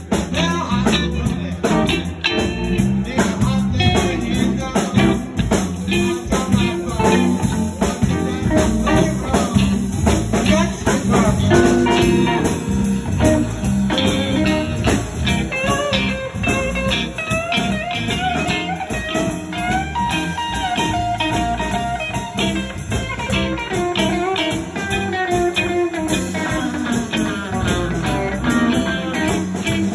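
Live band playing: electric guitar over electric bass and a drum kit, with a lead line of bending notes through the second half.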